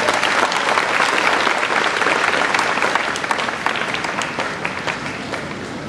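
Audience applauding, dense clapping that gradually dies down toward the end.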